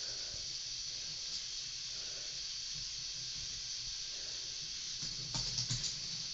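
K'nex ball machine running: a steady hiss with a low hum underneath, and a short run of plastic clicks about five seconds in.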